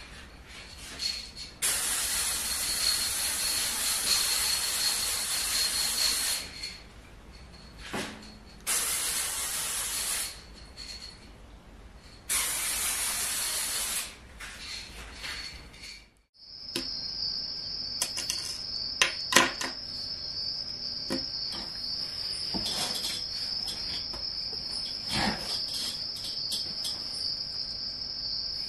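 Aerosol spray paint can spraying in three long hisses, the first about four seconds long, the next two shorter. After a break, a steady high-pitched tone runs under scattered clicks and taps.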